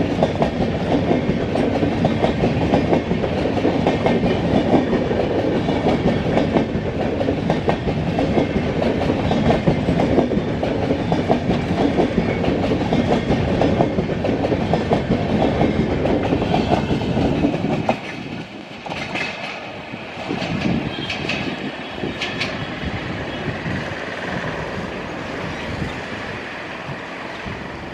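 Indian Railways LHB passenger coaches passing at speed, wheels clattering over the rail joints. About eighteen seconds in, the sound drops to a quieter rumble with a few sharp rattles as the train runs away down the line.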